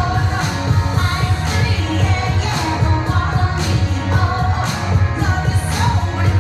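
Pop song playing for a dance workout: singing over heavy bass and a steady beat.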